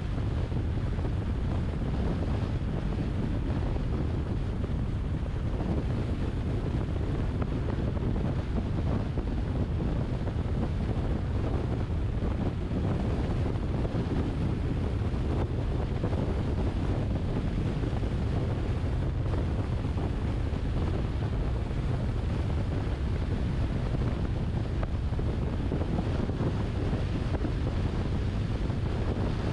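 Car driving at a steady cruising speed: a constant low rumble of tyre, road and wind noise that does not change.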